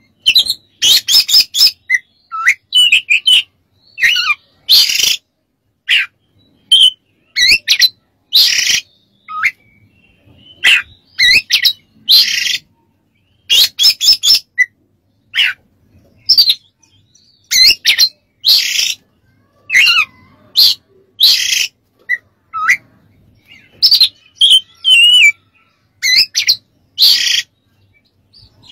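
Oriental magpie-robin (kacer) singing loudly in bursts of short, varied phrases: clear whistled slurs mixed with harsh, scratchy notes, with brief pauses between.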